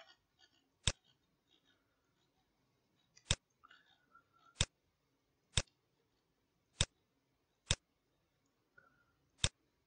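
Seven single computer-mouse clicks, spaced about a second apart, with near silence between them.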